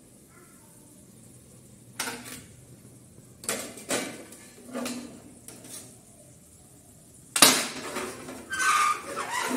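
Aluminium cooking pots, lids and a kadai being handled and set down on a gas stove: a handful of separate metal clanks, then a longer, louder clatter with some ringing near the end.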